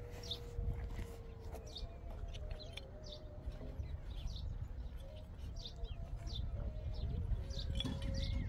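A bird chirping, short high chirps repeated about once a second.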